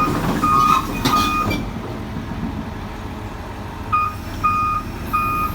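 Heavy-machinery reversing alarm sounding a run of short beeps, about one and a half a second. The beeps stop for about two and a half seconds midway, then resume over a diesel engine running at a steady rumble.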